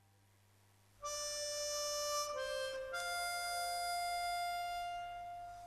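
Slow solo music on a reed instrument: three held notes starting about a second in, the third one the longest, fading out near the end.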